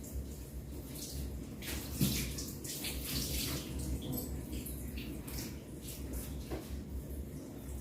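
Running water splashing through hair as a hair treatment is partly rinsed out, in uneven gushes.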